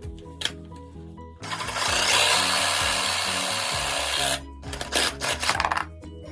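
A saw cutting plastic pipe to length: a loud, steady rasping for about three seconds, then a quick run of short strokes. Background music plays throughout.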